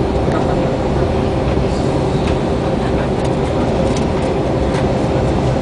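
Steady roar of an airliner's cabin during landing: a dense rumble of engines and rushing air, with a faint steady hum on top.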